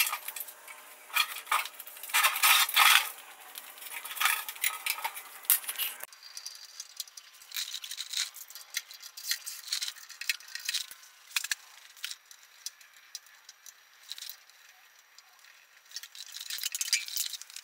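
Metal clinks and rattles as the bandsaw's steel base-cabinet access cover and its fasteners are handled and worked loose. Dense and louder for the first six seconds, then fainter scattered clicks.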